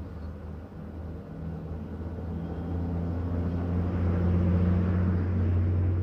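Low, steady droning hum that swells louder over a few seconds and begins to fade near the end.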